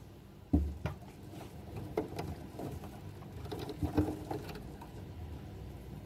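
Scattered light clicks, taps and rustling of an insulated wire being pushed along and pressed into a plastic slotted cable duct. A dull thump comes about half a second in and a sharper tap about four seconds in.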